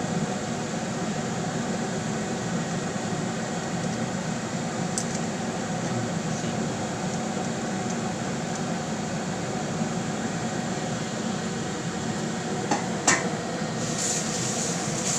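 Steady mechanical hum of kitchen equipment over a pot steaming on the stove, with two light knocks a couple of seconds before the end and a brief hiss just after them.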